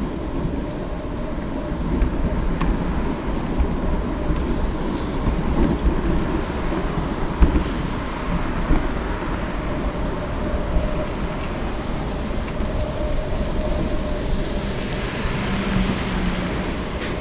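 Bicycle tyres hissing over wet, puddled asphalt as the bike rolls along, with steady wind rumble on the microphone.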